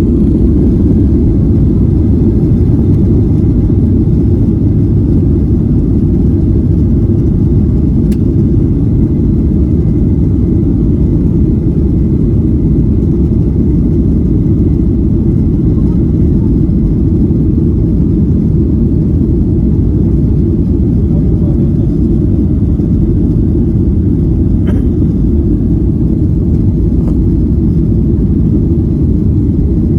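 Airliner cabin noise: a loud, steady low rumble of the jet engines and airflow heard from inside the cabin.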